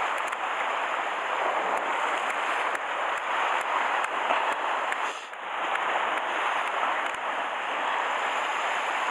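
Sea surf washing on a rocky shore: a steady rush that dips briefly about five seconds in and swells again.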